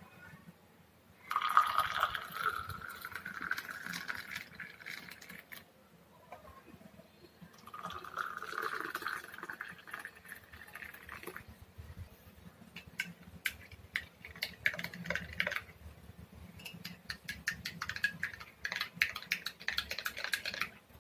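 Boiled milk poured from a metal pan through a plastic tea strainer into glass mugs of whipped instant coffee, in two pours, each rising slightly in pitch as the glass fills. Then a spoon stirring in a glass mug, with many quick clinks against the glass that come faster near the end.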